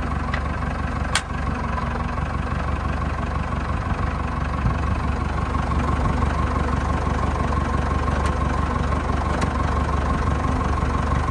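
Massey Ferguson 375 tractor's diesel engine idling steadily, with a single sharp click about a second in.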